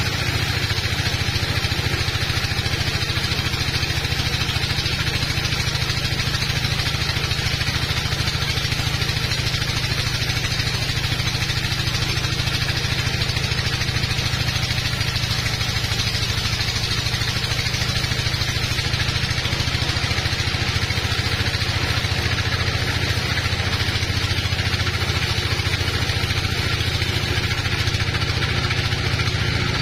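Sawmill band saw running steadily as it cuts lengthwise through a teak log, a constant even machine drone.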